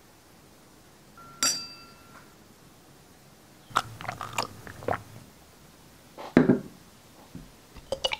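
A glass clinks once with a short ringing tone, then a close-miked run of eating-ASMR mouth sounds: clicks and smacks, a heavier gulp-like thud about six seconds in, and more smacking near the end.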